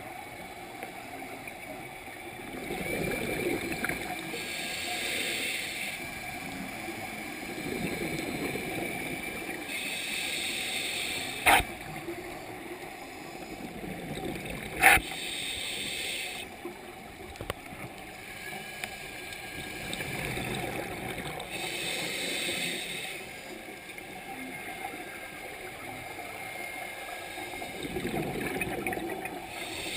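A scuba diver breathing through a regulator underwater: a hiss on each inhalation alternates with a gurgling rush of exhaled bubbles, one breath about every five to six seconds. Two sharp clicks sound about three seconds apart near the middle, the second one the loudest sound.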